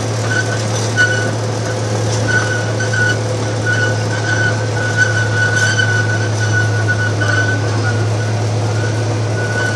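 Amusement-park train ride running: a steady low rumble, with a high squeal that comes and goes.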